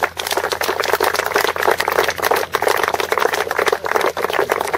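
Crowd applauding, many hands clapping at once, starting suddenly.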